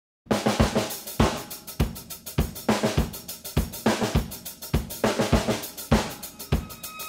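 Drum-kit music with a steady beat, bass drum, snare and cymbals, at a little under two beats a second, starting a moment in.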